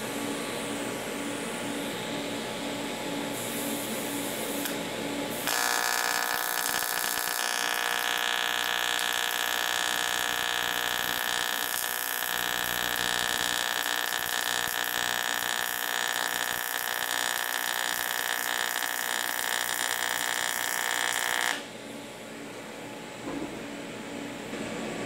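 AC TIG welding arc on a thin aluminium can, a steady buzz that starts about five seconds in and cuts off sharply some sixteen seconds later. A quieter machine hum runs before and after it.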